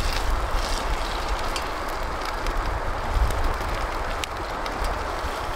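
Small wood campfire crackling with scattered sharp pops, over a steady rush of nearby river water and wind rumbling on the microphone.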